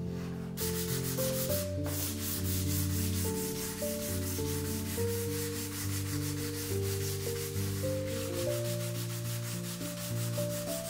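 Sandpaper wrapped around a curved block rubbed back and forth in quick, even strokes along the edge of a walnut handle, starting about half a second in with a brief pause near two seconds. Background music plays underneath.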